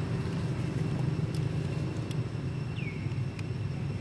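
Outdoor ambience: a steady low rumble, with a faint steady high tone above it and a short high chirp gliding downward about three seconds in.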